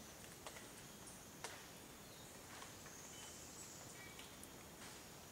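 Near silence: faint rainforest ambience with a thin, high-pitched insect buzz that comes and goes, and a few faint clicks, the clearest about a second and a half in.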